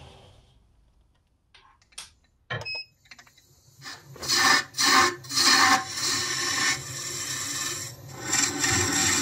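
A turning tool cutting a small spinning wooden blank on a wood lathe. There are short scraping passes from about four seconds in, then a steady cut. A few sharp clicks come first, over near silence.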